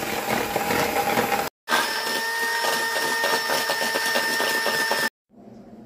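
Handheld electric mixer running, its twin wire beaters whisking creamed ghee and powdered sugar in a bowl: a steady motor whine with a whirring rattle. It breaks off briefly about a second and a half in, then cuts off suddenly about a second before the end.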